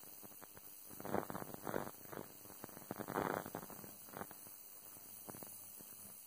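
Jeweller's ultrasonic cleaner running, its bath giving a faint steady hiss with irregular crackling swells, loudest about a second in and again around three seconds in.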